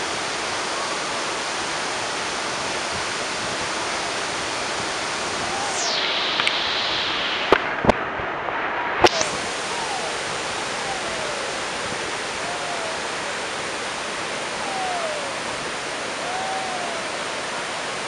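Steady rush of a waterfall and rapids cascading down granite slabs, with a few sharp clicks about halfway through.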